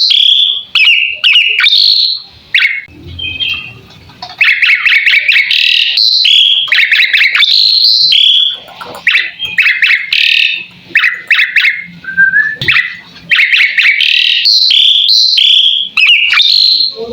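Asian pied starling (jalak suren) singing a loud, rapid run of chattering, squeaky and whistled notes, with a short pause about two seconds in before the song resumes.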